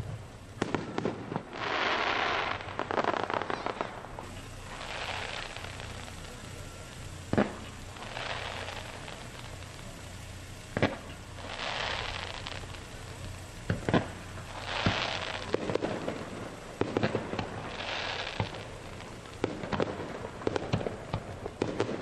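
Aerial firework shells bursting: a few sharp bangs spaced several seconds apart, with stretches of crackling about a second long between them, and a quick run of small pops near the end.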